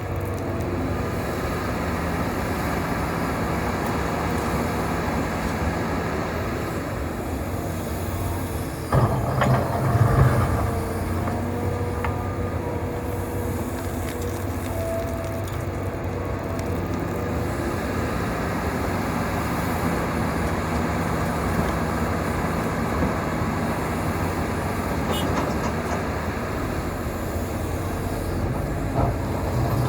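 Hitachi 350 excavator's diesel engine running steadily at working speed, with a loud clatter about nine seconds in that lasts a second or so.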